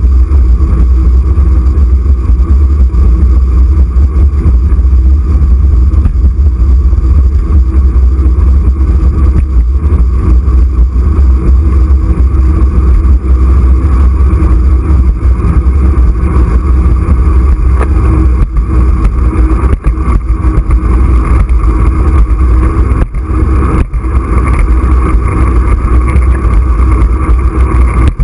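Wind buffeting a handlebar-mounted camera's microphone while riding at speed: a loud, steady rumble with a faint, even hum above it.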